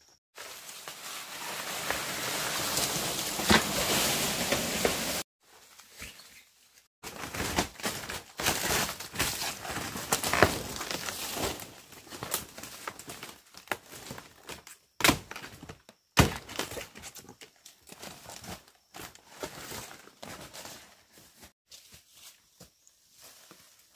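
Rustling and crinkling with scattered sharp knocks and footsteps, loudest and densest in the first five seconds, broken by several abrupt silences.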